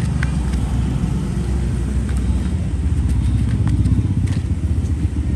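Low, steady engine rumble of motorbike traffic going by, with a few faint light clicks over it.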